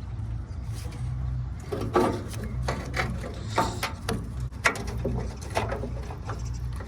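Scattered plastic clicks and knocks of a tail light wiring harness being handled and pulled through a pickup truck's body, over a steady low rumble.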